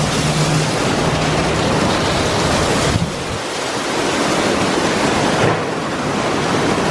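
Ryko SoftGloss MAXX rollover car wash scrubbing a car with its spinning red top and side brushes under water, a loud steady rushing. A low motor hum is heard in the first second, and the low end of the rush thins out about halfway through.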